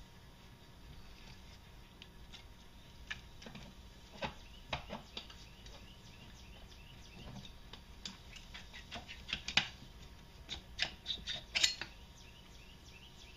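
Light metallic clicks and clinks from a Can-Am ATV engine cylinder being worked up off its crankcase studs by hand. The clicks are scattered at first and come thicker and louder in the second half.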